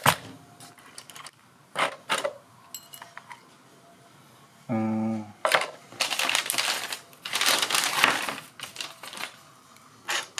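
Handling noises: sharp clicks and knocks, then a few seconds of rustling and clatter of small parts and packaging. About five seconds in there is a short, low, steady buzz of about half a second.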